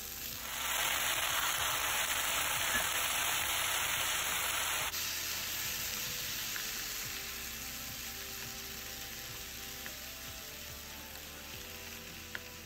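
Chopped okra sizzling in hot oil in a pan while being stirred with a wooden spoon. The sizzle is loudest for the first few seconds, then drops abruptly about five seconds in and goes on more quietly.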